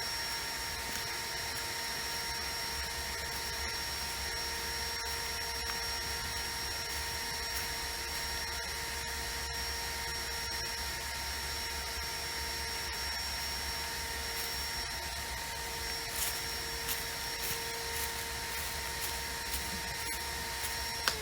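Kärcher WD1 wet-and-dry vacuum cleaner running steadily with a constant whine, switched off at the very end so its motor winds down in falling pitch.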